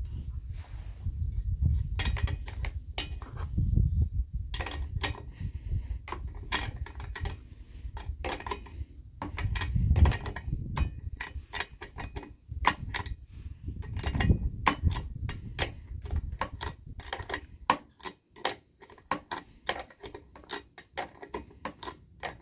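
Irregular metal clicks and scrapes from a chainsaw combination wrench being fitted and turned on the spark plug of a Husqvarna Rancher 460 chainsaw, loosening it, mixed with the rattle of the plastic air-filter cover being handled.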